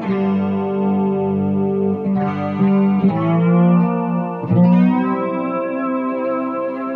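Background music led by a guitar played through effects, with held notes that change every second or so.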